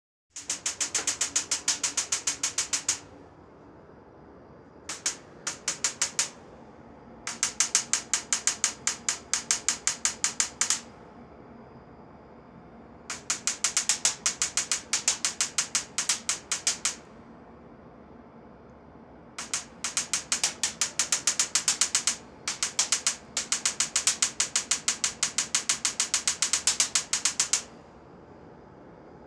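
Furnace clicking rapidly, about eight clicks a second, in runs of a few seconds that stop and start again, over a steady hum.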